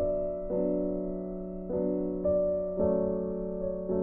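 Soft background piano music: chords struck about once a second, each fading away before the next.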